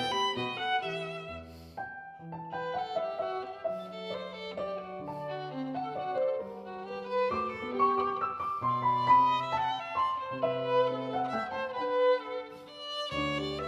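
Background music led by a violin melody over a low accompaniment, with a brief drop around two seconds in.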